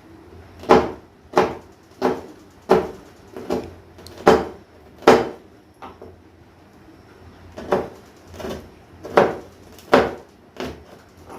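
Kitchen knife chopping green chillies on a chopping board: single sharp knocks about every 0.7 seconds, with a pause of about two seconds midway.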